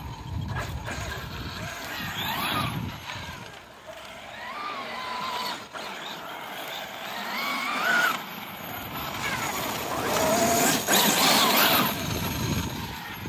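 Brushless electric motor of a 1/5-scale Losi 5T RC truck whining up and down in pitch with each burst of throttle, over tyre noise on gravel. There are several whines; the loudest and longest comes near the end.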